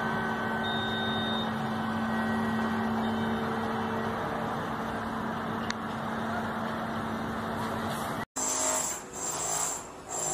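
Construction-site machinery running with a steady engine drone and hum. About eight seconds in the sound cuts out for an instant and then comes back as a different machine noise that swells and fades.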